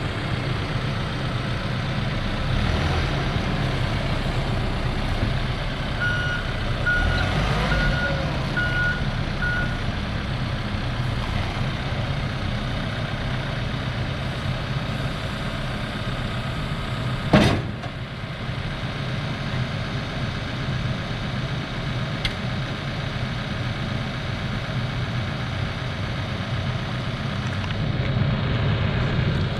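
Case 580 Super N loader backhoe's diesel engine running steadily while the machine is operated. Its reverse alarm beeps about five times, starting about six seconds in, and there is a single sharp clunk a little past halfway.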